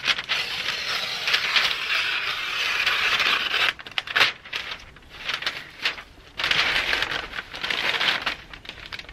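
Tyvek house wrap being torn, crinkling as it is pulled away from the base of the wall: two long rasping stretches with a few short rips between.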